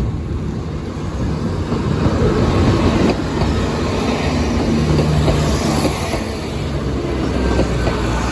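Class 170 Turbostar diesel multiple unit passing close by at speed: underfloor diesel engines running and wheels rumbling on the rails in a dense, steady din, loudest through the middle of the pass.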